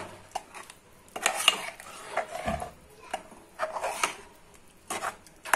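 A steel ladle scraping and clinking against a metal pot as it stirs a thin, watery mutton and gongura curry, in several short spells with pauses between.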